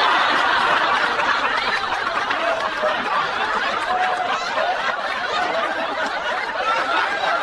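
Many people laughing at once, a dense crowd laugh that sets in suddenly right after the punchline and slowly dies down.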